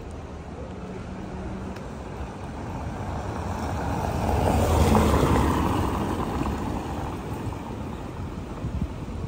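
A motor vehicle driving past, its tyre and engine noise rising to a peak about five seconds in and then fading away.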